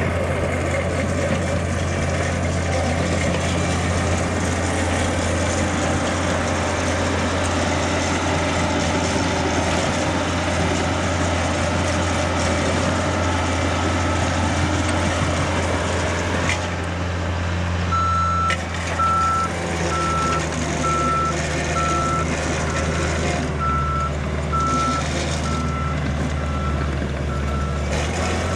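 Engine of a construction machine running steadily. About two-thirds of the way through, its backup alarm starts beeping, about once a second, as the machine reverses.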